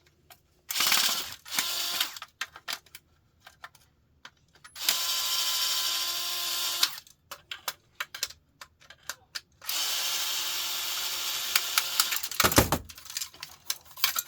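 Cordless power drill/screwdriver driving screws out of a laser printer's casing: a couple of short runs, then two longer steady runs of about two seconds each, with small clicks and rattles of screws and parts in between.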